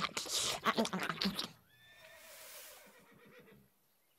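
Cartoon animal vocal sounds in quick rhythmic pulses that stop about a second and a half in, followed by a faint, quiet stretch that fades out.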